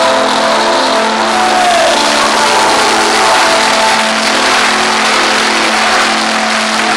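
A crowd clapping and applauding over sustained electronic keyboard chords from a live band, all loud.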